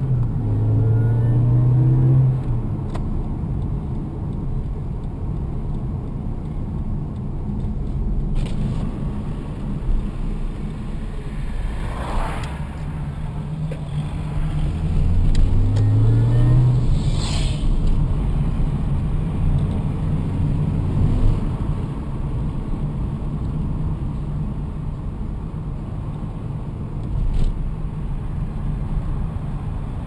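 Toyota Corolla T Sport Compressor's supercharged four-cylinder engine heard from inside the cabin while driving. It revs up under acceleration near the start and again about halfway through, with steady running between and a couple of brief sharp noises in the middle.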